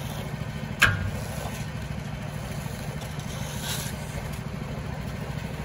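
An engine idles steadily under asphalt patching work. Hand tools work the hot mix: one sharp metallic clank about a second in, and a scraping rake stroke just before four seconds.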